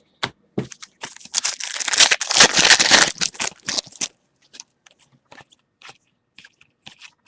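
Trading-card pack wrapper crinkling, densest from about one to four seconds in, followed by scattered light clicks and rustles of cards being handled.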